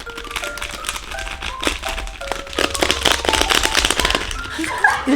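Light background music of short plucked notes, over rapid crackling and crinkling of a plastic candy wrapper being torn open.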